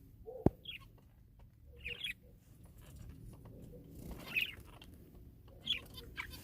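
Pet birds giving a few short, high squeaky chirps, spaced a second or two apart, with one sharp click about half a second in.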